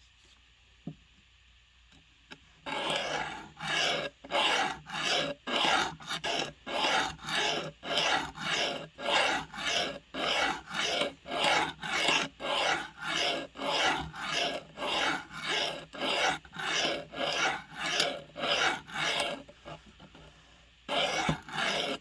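A blade being sharpened by hand with quick, even rasping strokes, about two a second. The strokes stop for a moment, then two more follow near the end.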